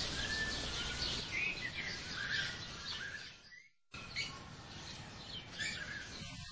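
Several birds chirping and calling over a soft outdoor hiss. The sound cuts out for about half a second a little past the middle, then resumes.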